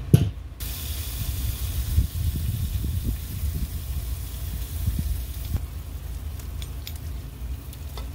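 Sizzling as a string barbecue mop dabs vinegar-butter mop sauce onto chicken over a hot charcoal kettle grill: a knock, then a steady hiss that stops suddenly about five and a half seconds in, over a low rumble.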